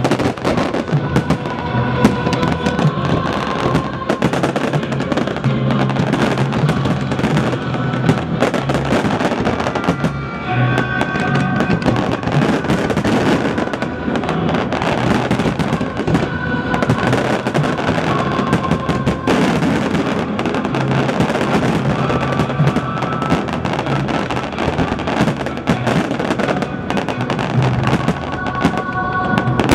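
Fireworks going off in quick succession, shells bursting and stars crackling densely, under loud music with held notes and a steady bass line.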